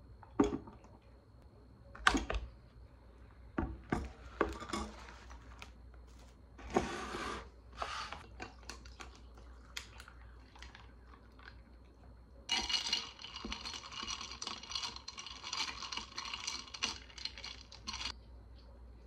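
A few sharp knocks of things set down on a table, then iced coffee poured from a glass server into a glass of ice and stirred with a straw. The ice clinks and rattles against the glass for about five seconds in the second half.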